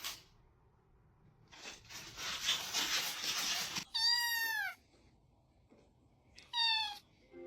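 A domestic cat meowing twice, two short calls that fall away in pitch at the end, about two and a half seconds apart. A couple of seconds of hissing noise come before the first meow.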